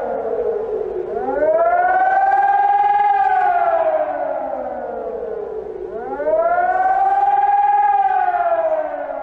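Civil defense siren wailing as the attack warning of an emergency alert broadcast. Its pitch rises quickly about a second in and again about six seconds in, and each time slides slowly back down over several seconds.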